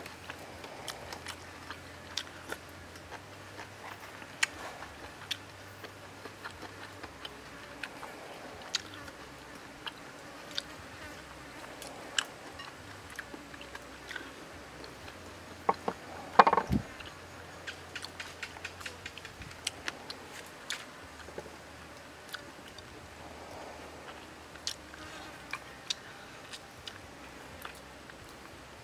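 A person eating: chewing, with many small sharp clicks of bamboo chopsticks against a ceramic sauce bowl and plate. One louder sharp sound comes about halfway through.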